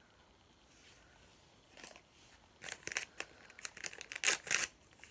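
Thin plastic wrapping crinkling and tearing in quick, irregular crackles as a miniature toy item is unwrapped, starting about two seconds in and loudest near the end.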